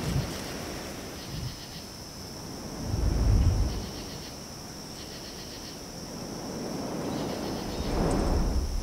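Sound-designed FPV quadcopter flight audio: a steady high motor whine over a low rush of air, which swells into a loud whoosh about three seconds in and again near the end.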